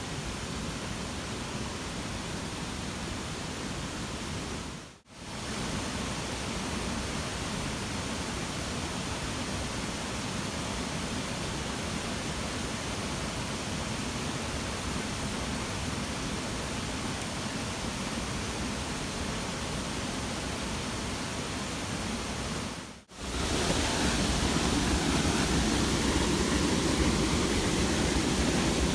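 Steady rushing hiss with no distinct events in it. It cuts out briefly about five seconds in and again near the end, and is louder and fuller after the second break.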